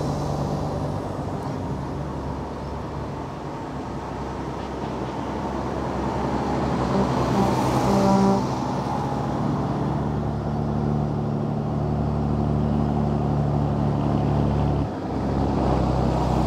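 Heavy diesel trucks, including concrete mixer trucks, driving slowly past one after another with their engines running at low revs. A few brief toots stand out about halfway through, and the engine drone dips for a moment near the end.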